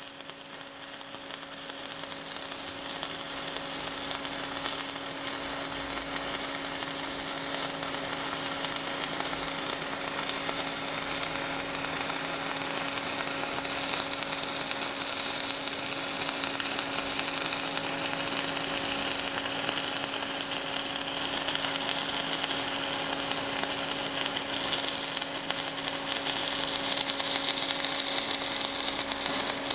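Stick-welding arc of a 1/8-inch 6010 electrode running a bead on 3/8-inch steel plate at 110 amps: a steady, harsh crackle and sizzle that grows louder over the first several seconds. A steady hum runs underneath.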